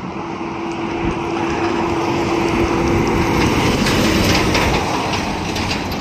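Toy container truck whirring steadily, its small wheels and gears running, with a faint rapid ticking.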